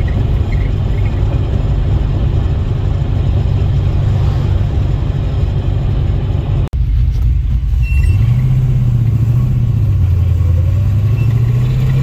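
Classic car's engine and road noise heard from inside the car while driving along a town street. After a brief cut about two-thirds of the way through, the engine note rises and falls, then climbs near the end as the car accelerates.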